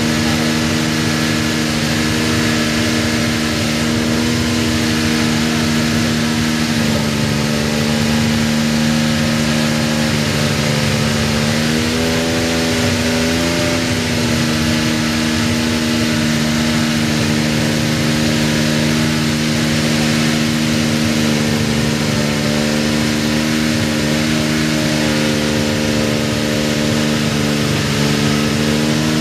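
McLaren MP4/2B's TAG-Porsche 1.5-litre twin-turbo V6 idling steadily, with a short rise and fall in engine pitch, a light blip, about halfway through.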